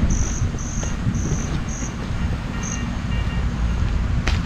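Insect chirping in a rhythm of short high-pitched pulses, about two a second, that stops about two seconds in, with one more chirp near the three-second mark. Underneath is a low rumble of wind on the microphone, and a single sharp click comes just before the end.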